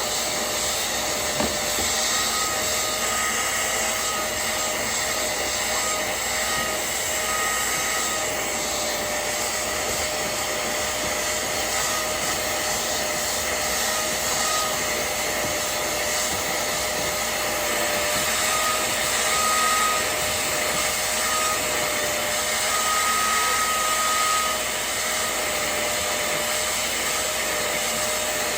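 Hoover CleanSlate portable spot cleaner running, its suction motor making a steady whine with a higher tone that comes and goes.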